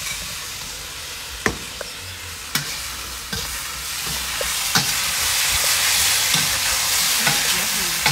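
Beef and vegetables frying with sauce in a hot wok, sizzling steadily and getting louder about halfway through, while a metal spoon stirs them with a few sharp clinks against the wok.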